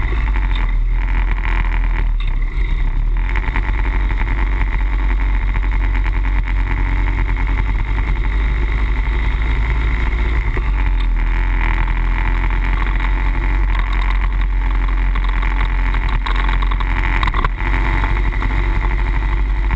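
Harley-Davidson Wide Glide's air-cooled V-twin engine running steadily at road speed, under heavy wind rush on the handlebar camera's microphone.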